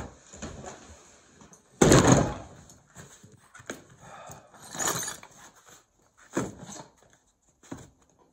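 A heavy tool bag set down on a wooden workbench about two seconds in, landing with a loud thud and a clatter of tools. Scattered knocks and clinks follow as tools are rummaged in the bag.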